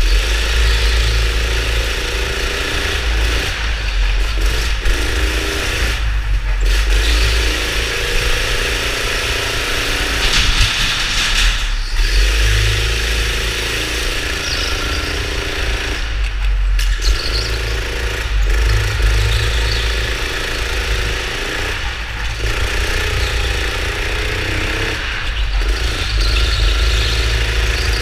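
Go-kart engine heard from on board the kart, its pitch climbing as it accelerates out of each corner, then falling away briefly as the driver lifts for the next. This repeats about eight times, over a steady low rumble.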